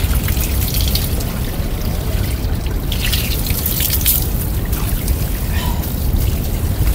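Cold hill spring water running steadily out of a pipe and splashing.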